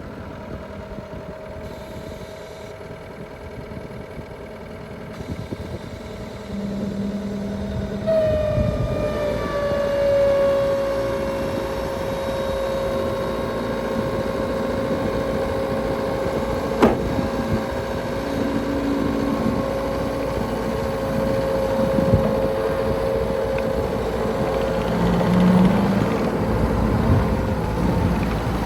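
John Deere 333G skid steer's diesel engine running. About eight seconds in, the throttle comes up and a high whine sets in, falling slightly in pitch and then holding steady, with a single sharp click partway through.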